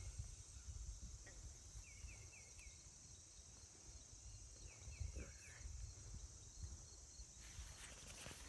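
Faint outdoor ambience: a steady high drone of insects, with a run of four or five quick chirps about every three seconds and a low rumble of wind on the microphone.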